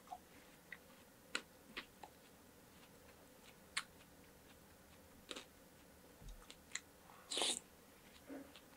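Close-miked eating sounds: a mouthful of watermelon punch (hwachae), fruit and ice, being chewed, with sparse sharp wet clicks and crunches. The loudest is a longer burst about seven and a half seconds in.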